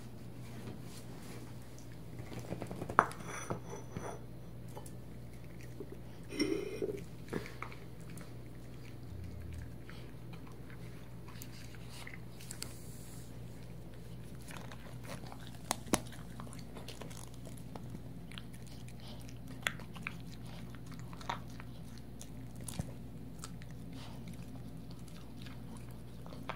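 A poodle chewing and crunching meat chunks from a ceramic bowl, with scattered sharp clicks as the pieces are bitten and knocked against the bowl.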